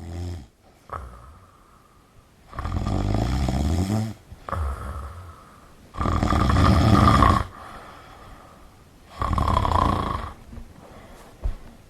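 A sleeping person snoring: four long snores of a second or so each, a few seconds apart, the loudest about six seconds in.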